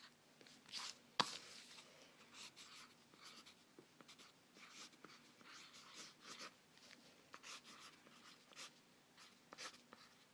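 Quiet scratching of a drawing tool on paper in many short strokes, with one sharp tap about a second in.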